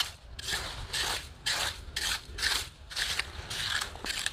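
Small hand clam rake scraping and digging through wet, gritty sand and mud while raking for Manila clams, in short strokes about two a second.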